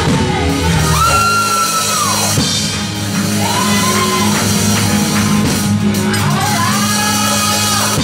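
Live church music: steady sustained chords underneath, with a voice crying out three long held high notes over them.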